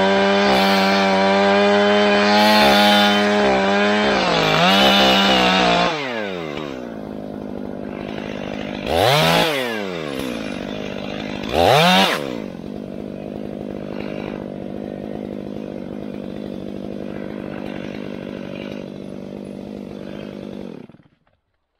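Stihl MS500i fuel-injected two-stroke chainsaw running at full throttle in a cut through a tree trunk, its pitch falling to idle about six seconds in. It idles with two quick throttle blips a few seconds apart, then the engine is switched off near the end and cuts out suddenly.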